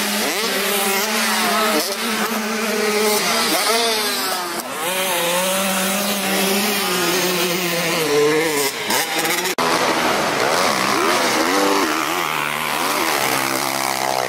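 Motocross dirt bike engines revving hard over the track, their pitch rising and falling sharply with throttle and gear changes, more than one bike overlapping at times.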